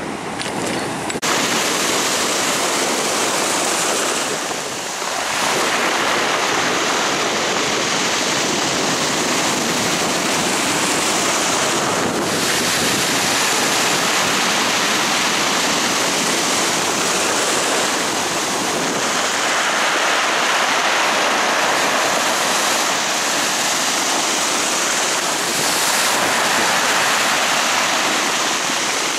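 Rough, storm-driven sea surf: heavy waves breaking and rushing ashore in a loud, continuous wash that swells and eases every few seconds.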